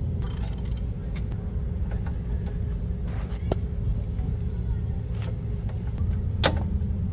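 A steady low mechanical rumble with a faint hum, with a few short sharp metal clicks as a serpentine belt tensioner is levered to slip the belt over an idler pulley.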